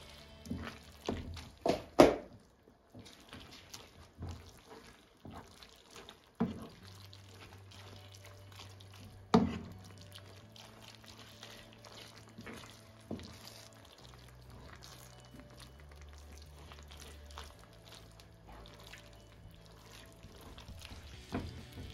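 A spatula stirring and tossing linguine in a thick cream sauce in a pan: wet, sloppy stirring with scattered knocks of the spatula against the pan, the loudest about two seconds in.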